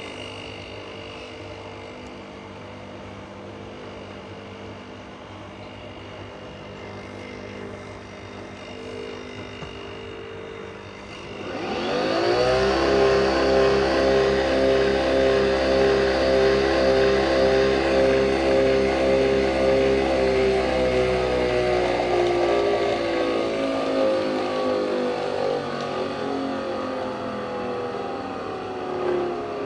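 Nespresso capsule coffee machine brewing: a quieter steady hum for about eleven seconds, then the pump starts abruptly with a loud, evenly pulsing buzz that runs on and slowly sinks in pitch as the coffee is pushed through.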